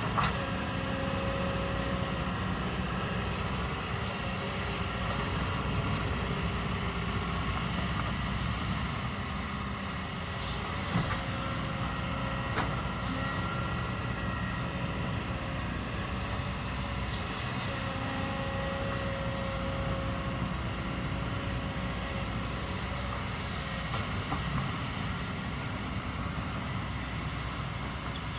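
Kobelco hydraulic excavator's diesel engine running steadily under work, with a faint whine that comes and goes and a few sharp knocks.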